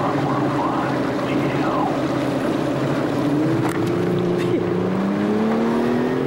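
20-foot Hydrodyne ski boat's engine running under way. From about halfway through, its pitch rises steadily as the boat speeds up.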